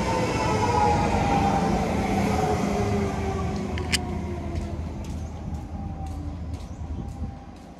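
Siemens C651 MRT train running along the track and away, its traction motors whining in tones that fall slowly in pitch over a wheel-and-rail rumble, fading steadily. A sharp click about four seconds in, then faint ticks about twice a second.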